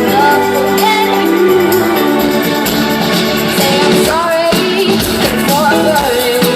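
A pop band playing live with a young girl singing lead over guitar, bass and drums.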